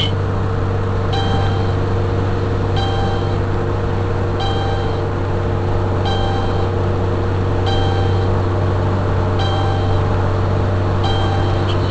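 Steady engine and road drone heard inside a car's cabin at highway speed, with a short electronic beep repeating about every one and a half seconds.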